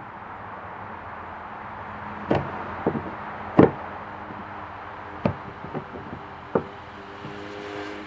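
Hard plastic knocks and clicks as a Scotty rod holder is fitted and worked into its mount base on a plastic kayak deck: about six sharp separate knocks spread over several seconds, the loudest about three and a half seconds in.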